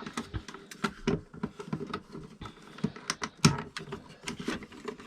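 Irregular small clicks and knocks of plastic socket fittings being handled and popped out of the panel.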